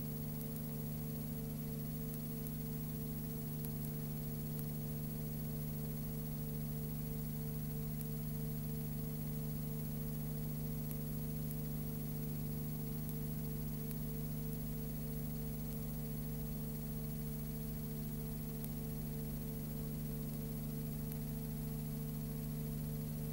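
Steady electrical hum of several low tones under a constant hiss, with faint clicks now and then: background noise of the film's audio transfer, with no sound from the scene itself.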